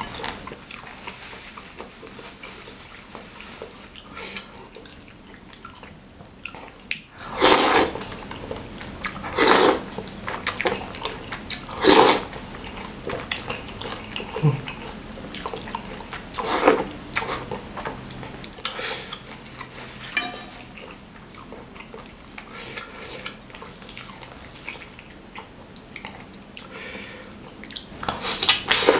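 Wet slurping as forkfuls of noodles in spicy soup are sucked into the mouth: a few loud slurps of about half a second each in the first half, with quieter mouth and eating noises between.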